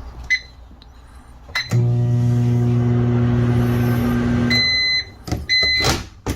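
A short beep and a click, then a microwave oven runs with a steady hum for about three seconds, stops, and beeps twice.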